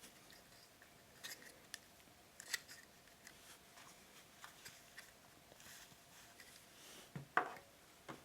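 Faint handling of a wristwatch and its strap on a watch winder's cushion: scattered small clicks and rubs, a handful over several seconds, with a faint steady hum underneath.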